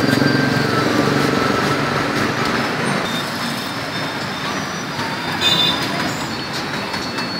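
Motor vehicle engine and traffic noise, a steady running hum with road rumble, strongest in the first couple of seconds.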